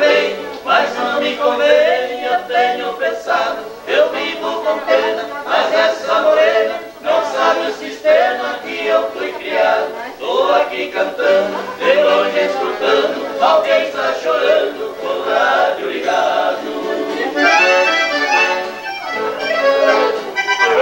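Accordion playing a traditional southern Brazilian folk tune, with chords and melody going without a break.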